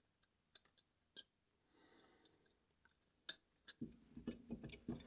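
Mostly near silence with a few faint isolated clicks, then, near the end, a quick string of small clicks and knocks as carburetor parts are handled and fitted together on a workbench.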